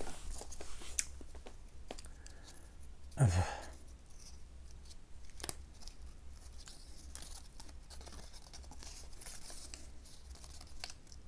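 Cardboard memory-game cards being handled and pulled apart: faint tearing, rustling and small clicks. A brief grunt about three seconds in.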